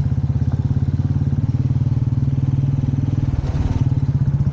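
Motorcycle engine running steadily under way, with an even, rapid pulsing of its firing. A short burst of noise cuts across it a little over three seconds in.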